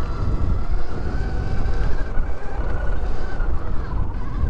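NIU XQi3 electric motorcycle's geared motor whining steadily under way on a dirt trail, the whine dipping briefly near the end as the rider eases off. Wind rumbles on the microphone, with tyre noise beneath.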